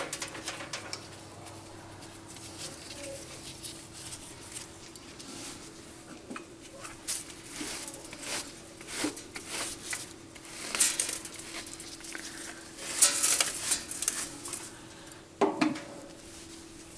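Bristle brush sweeping metal chips off a metal lathe's carriage and headstock in short, irregular scraping strokes, with a few sharp metallic clinks. A faint steady hum runs underneath.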